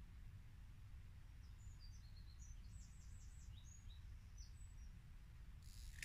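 Faint songbird singing: a run of short high chirps and quick falling notes over low steady background noise, with a brief rustle near the end.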